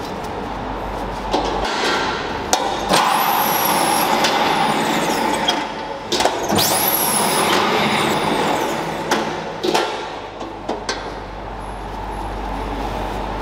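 Seaweed-cutting machine with a serrated blade going through a stack of dried laver (nori) sheets in two cutting strokes, each about two and a half seconds long. Each stroke brings a hiss and a very high whine that rises and falls. Sharp clicks sound between the strokes, over the steady hum of factory machinery.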